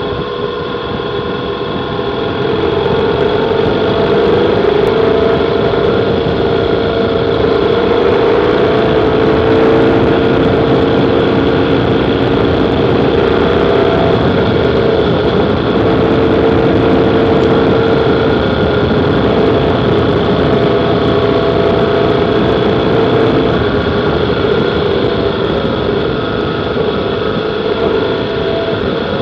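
Motorcycle engine running steadily at riding speed, heard from a camera mounted on the bike, with wind and tyre noise on a gravel road. It gets a little louder about three seconds in, then holds steady.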